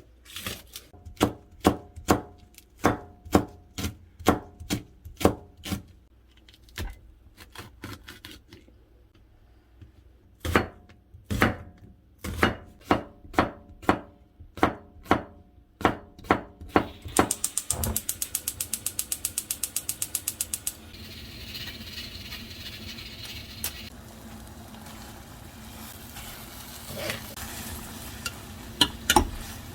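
Knife chopping on a cutting board in runs of sharp, even strokes about two to three a second. Past the middle comes about three seconds of very rapid ticking, then a steady hiss.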